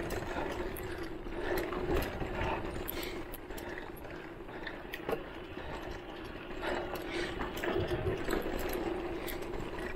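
Voltbike Enduro electric mountain bike riding a bumpy dirt trail: the motor's steady whine under rapid clicks and rattles from the bike's drivetrain and frame jolting over bumps. The whine fades for a few seconds near the middle, then comes back.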